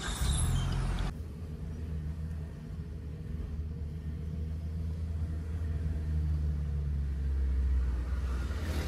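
Low, steady engine and road rumble heard inside the cabin of a Suzuki Ignis being driven slowly, growing a little louder in the second half.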